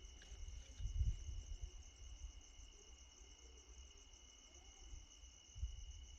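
Steady chorus of insects, likely crickets, droning at two constant high pitches, with brief low rumbles about a second in and near the end.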